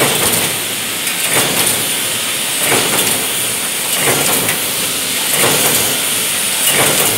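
Pail handle wire-forming machine running automatically, its tooling clattering once per forming cycle, about every second and a third, over a steady hiss.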